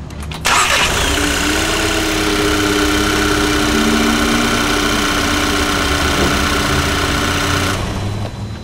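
Car engine jump-started from a portable battery pack: it starts about half a second in and then runs steadily at idle, a little quieter near the end.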